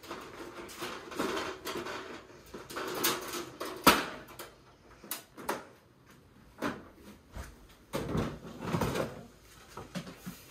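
Handling knocks and clatter as a camp kitchen is packed into a plastic DeWalt storage tote: a wooden shelf board and gear bumped and set down. One sharp knock about four seconds in is the loudest.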